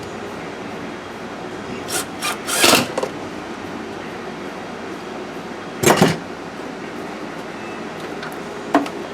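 Car parts being handled, with a few short scrapes and knocks: a quick cluster about two to three seconds in, the loudest about six seconds in, and a sharp click near the end, over a steady background noise.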